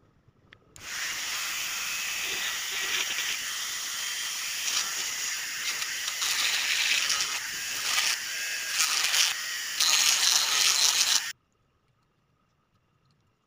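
Handheld rotary tool (mini drill) running and grinding into the plastic housing of a correction-tape dispenser: a hissing, scraping noise that switches on about a second in, surges unevenly as the bit bites, and cuts off suddenly near the end.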